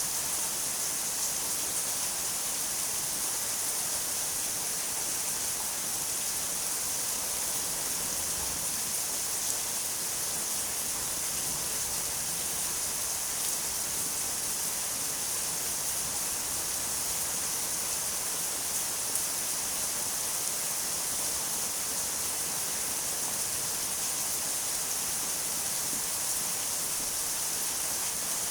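Steady rain falling, an even hiss of many drops with no change in intensity.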